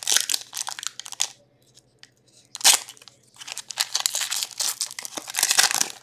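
Hockey card pack wrappers being torn open and crinkled, and cards handled, as packs are opened. Crinkling for the first second or so, a sharp rip about two and a half seconds in, then steady crinkling and rustling.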